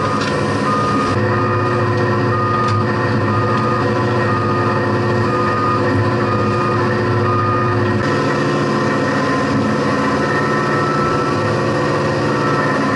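Heavy equipment engine running steadily while lifting and moving a hanging snowplow wing, its note shifting about eight seconds in. A high beeping sounds in short repeated dashes during the first few seconds.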